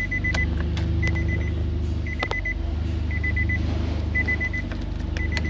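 Electronic warning beeper sounding in quick bursts of several short high beeps, about one burst a second, over a steady low hum, with a few clicks.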